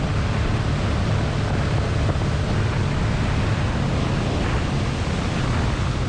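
Boat's outboard motor running steadily with the boat under way, with rushing water and wind noise on the microphone.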